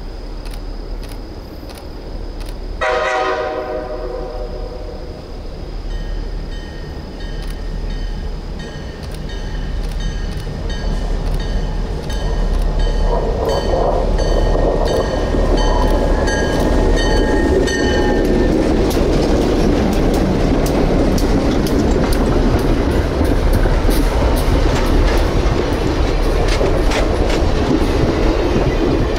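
A train horn sounds one short blast. A bell then dings at an even pace while a train approaches and passes, its rumble growing loud and steady with the clickety-clack of wheels over rail joints.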